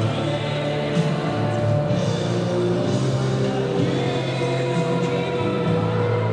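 Music with singing over a bass line.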